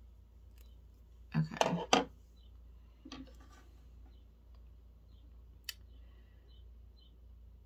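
Makeup products and tools clattering as they are handled and set down: a quick burst of clicking and rattling about a second and a half in, a smaller one about three seconds in, and a single light click later.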